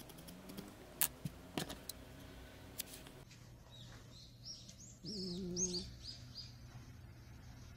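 A few sharp clicks of a barbed felting needle stabbing into wool. Then a sleeping tabby cat snores once, about five seconds in, for under a second, while a series of short bird chirps sounds behind it.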